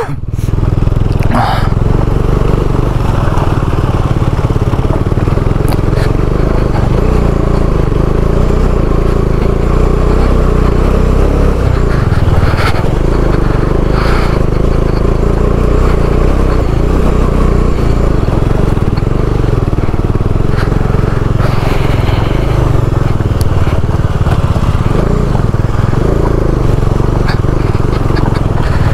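Motorcycle engine running steadily at low speed up a rough, rocky dirt track, with a few sharp knocks and clatter from stones and the bike jolting over the ruts.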